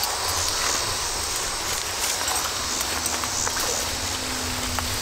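Outdoor ambience: insects calling in a steady pulsing chorus over a low rumble on the microphone, with scattered light clicks.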